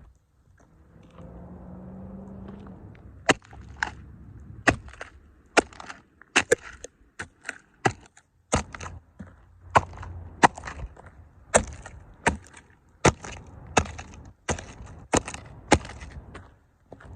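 Plastic toy cars cracking and snapping under stomping combat boots: a long series of sharp cracks, about one or two a second, starting about three seconds in.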